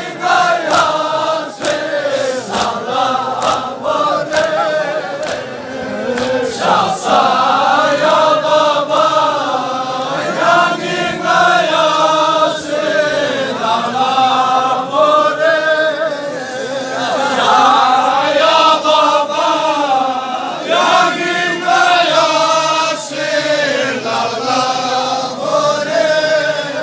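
A crowd of men chanting a Balti noha, a Shia lament, together, with a steady beat of sharp slaps in the first few seconds and again in the last few.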